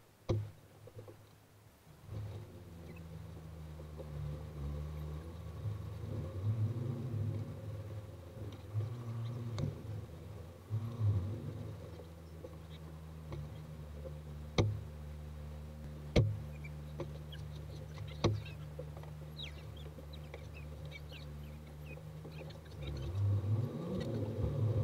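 Car engine running, heard from inside the cabin as a steady low hum. A few sharp clicks and knocks come through it, and the hum grows louder near the end as the car moves off.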